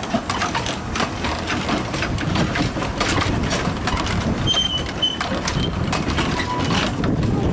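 Narrow-gauge passenger coaches rolling past, their wheels clicking and clattering over the rail joints. Brief high wheel squeals come in about halfway through, and a thin squeal near the end.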